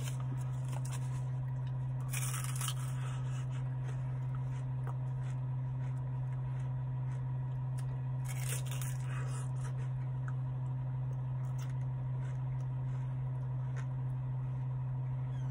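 Crunching bites into a wafer ice cream cone, once about two seconds in and again about eight seconds in, over a steady low hum inside a car.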